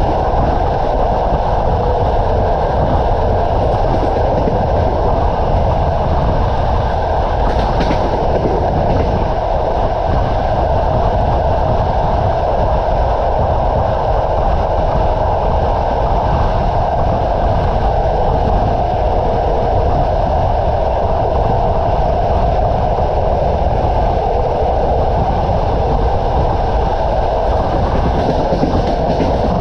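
Passenger train carriage running at speed, heard at the carriage window: a steady rumble of wheels on rails mixed with rushing air.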